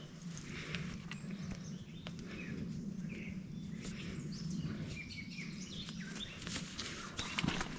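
Distant wild turkey gobbling, faint over outdoor ambience with small birds chirping and a steady low hum.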